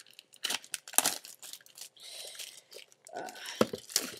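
Plastic wrapping crinkling and tearing in irregular bursts as it is pulled off a Sea-Monkeys tank kit by hand.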